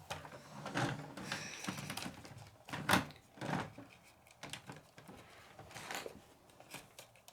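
Plastic toy cash register and its parts being handled: scattered light clicks and knocks, the sharpest about three seconds in, with faint rustling early on.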